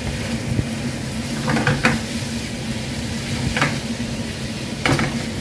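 Pork, cucumber and carrot sizzling in a nonstick frying pan as they are stir-fried with a wooden spatula. A few short scrapes and knocks of the spatula against the pan come at about one and a half seconds, three and a half seconds, and near the end.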